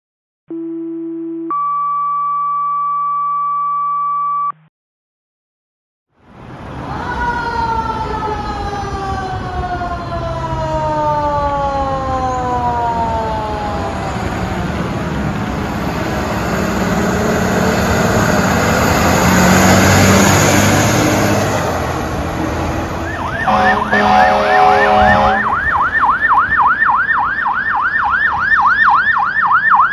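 A short steady electronic tone, then fire trucks passing on an emergency response. A mechanical Q-siren winds down slowly in pitch over their engine noise, air horn blasts sound around 23 seconds in, and an electronic siren takes over in a fast up-and-down yelp.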